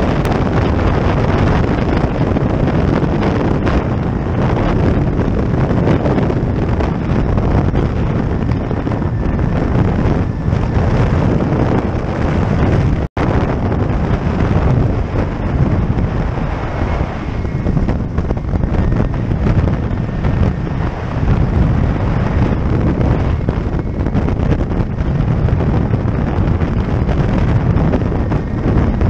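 Loud wind rush buffeting a helmet microphone in flight, over the steady drone of a flexwing microlight trike's Suzuki G13BB 1.3-litre engine. The sound cuts out for an instant about 13 seconds in.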